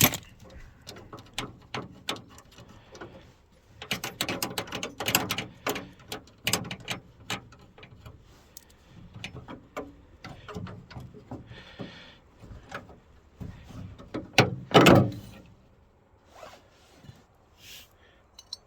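Ratchet wrench clicking in short bursts while loosening the two 10 mm nuts that hold a minivan's exterior door handle inside the door. There is a louder clunk about 15 seconds in.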